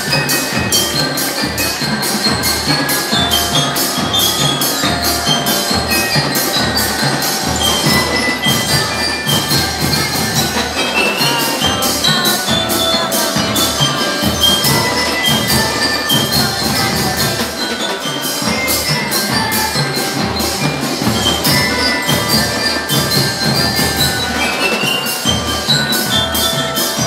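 Drum and lyre corps playing: marching drums beat a steady, driving rhythm while bell lyres carry a bright ringing melody over it.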